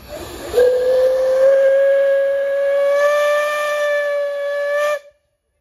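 Steam whistle of Bure Valley Railway's 15-inch gauge steam locomotive No. 7 'Spitfire': one long blast of about four and a half seconds, opening with a brief rush of steam. Its pitch creeps up slightly, and it cuts off suddenly.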